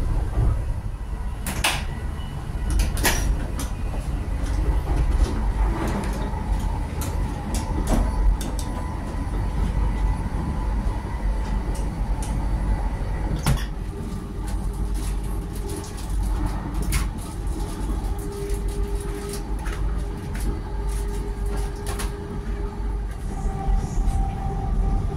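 Interior of a GWR Class 800 Intercity Express Train running at speed: a steady low rumble with frequent clicks, knocks and rattles. A steady hum comes in about halfway through.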